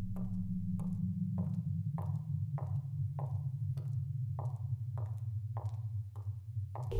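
Soundtrack music: a steady low electronic drone with a dry, sharp tick repeating about every half second.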